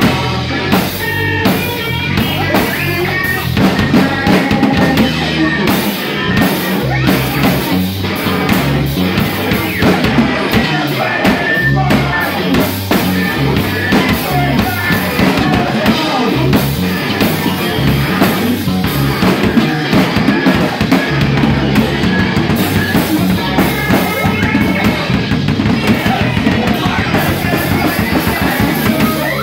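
Loud live rock band music: a drum kit playing a busy beat, with bass drum and snare hits prominent over a stepping low bass line.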